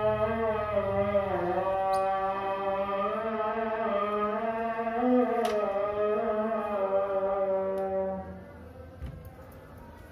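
Background music: a slow, sustained melody held over a steady drone, which fades out about eight and a half seconds in.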